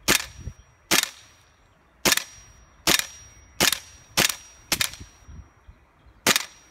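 Airsoft M16-style rifle firing single shots: eight sharp cracks, roughly a second apart, with a longer pause near the end.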